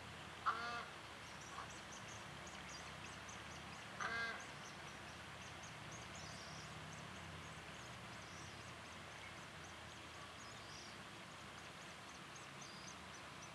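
Two short calls from a dusky moorhen, about three and a half seconds apart, the first sharp and the loudest sound. Faint, quick high chirps tick along in the background.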